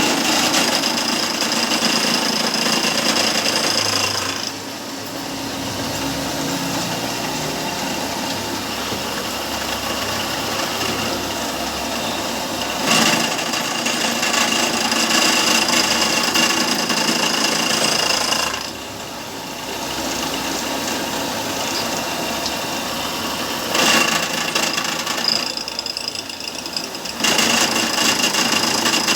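Drill-press milling machine cutting a chamfer in aluminium: a steady high whine over rough, rattling cutting noise. The noise eases off briefly three times, and there are two sharp knocks.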